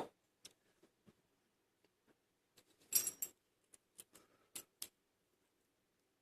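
Small metal clicks and taps from handling a steel padlock and its tools during disassembly: a cluster about three seconds in, then several sharp clicks, followed by stillness.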